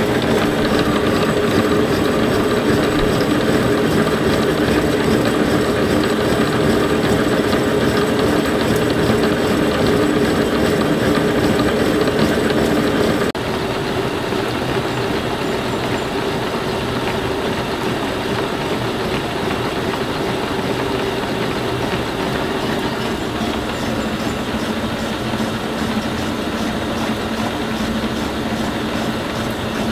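Defiance horizontal boring mill running a 5-inch face mill through a facing cut on a steel angle plate: a steady, chugging mechanical drone with the spindle and cutter inserts chattering rhythmically. About 13 seconds in it abruptly drops a little quieter and runs on steadily.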